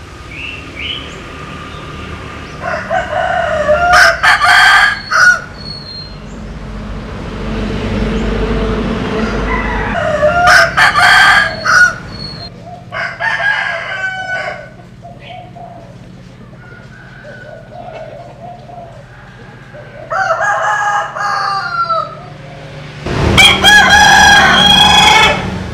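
Roosters of a Vietnamese-American crossbred 'butterfly' chicken flock crowing in turn, about five long crows, with a low rumbling noise that swells and fades between the early crows.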